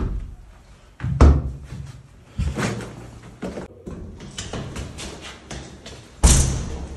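A run of door and window handling sounds: sudden knocks and bangs as a window and a metal flat door are opened and shut, the loudest about a second in and again just after six seconds, with smaller clunks between.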